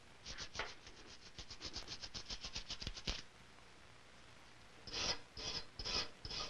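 Gunsmith's hand tools working metal and wood. A quick run of short scraping strokes, about nine a second, lasts some three seconds; after a pause come a few slower, longer rasping strokes.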